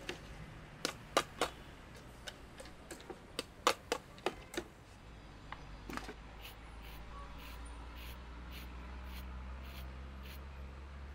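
Plastic bottles and junk clattering and knocking in a plastic crate as it is rummaged through by hand, in irregular sharp knocks. From about six seconds in, faint regular ticking, about two a second, over a low hum.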